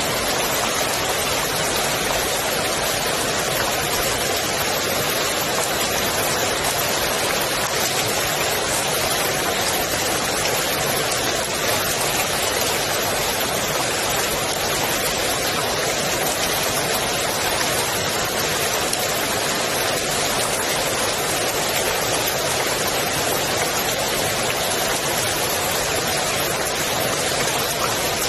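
Rain falling steadily on the water of a swimming pool: an even, unbroken hiss of drops with no change in strength.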